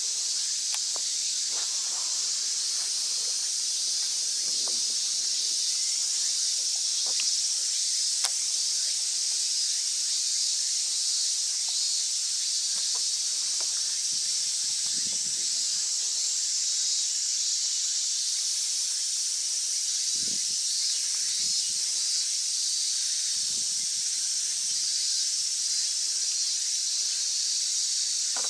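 Steady, high-pitched hiss of a summer cicada chorus, with a few faint clicks and brief low knocks beneath it.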